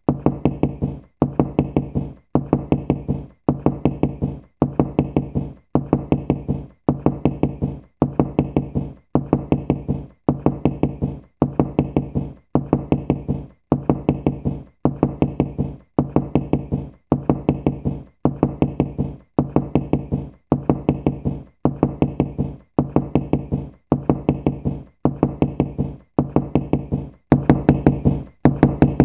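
Knocking: quick runs of several knocks, each run about a second long with a brief pause between, repeating steadily. Near the end the knocks turn sharper and brighter.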